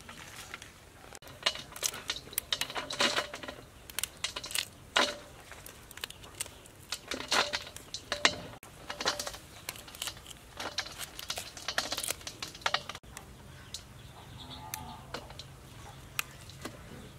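Fresh vegetable stems, leaves and flower buds being snapped and pinched apart by hand, many irregular crisp snaps and rustles, with pieces dropping into a steel basin. The snapping is busiest through the first two-thirds and thins out near the end.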